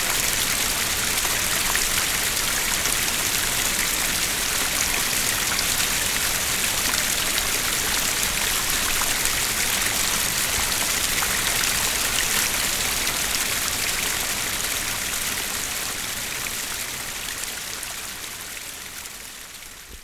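Two small water streams running at once, a steady, even rush of flowing water with a slight difference between left and right. The sound fades out over the last several seconds.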